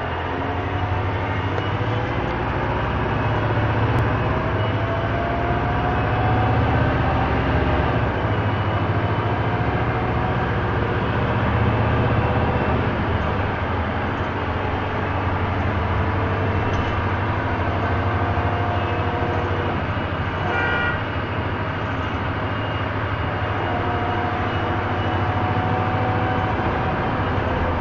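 1999 Orion V transit bus running at road speed, heard from inside the passenger cabin: a steady low drone from the engine and drivetrain, with faint whines that rise in pitch now and then as it pulls. A brief high-pitched tone sounds about twenty seconds in.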